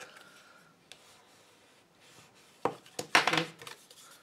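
Cardstock being handled: a sharp tap a little past halfway through, then a brief rustle and scrape of card.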